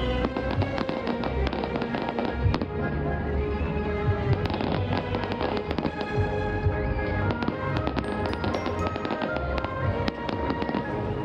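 Fireworks bursting in quick, irregular bangs over music played with the show.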